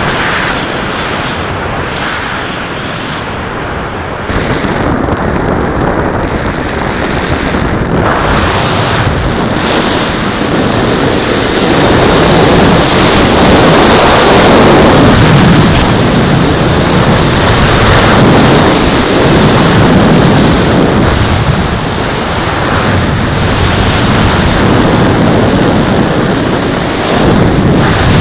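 Wind rushing over the onboard camera's microphone on a Skywalker 1900 FPV plane in flight, a loud, even rushing that swells and fades and grows louder about halfway through.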